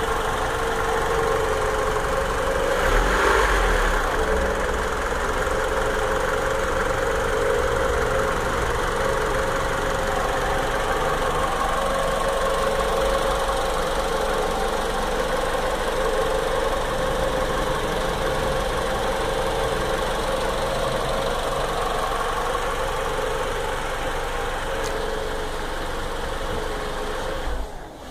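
Mitsubishi 4B11 2.0-litre MIVEC DOHC 16-valve inline-four idling steadily under an open hood. It is briefly louder about three seconds in.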